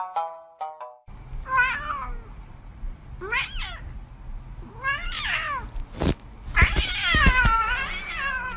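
Domestic cat meowing four times, each call rising and falling in pitch, the last one long and the loudest, over a low steady hum. A sharp click comes just before the last meow, and a few plucked music notes end about a second in.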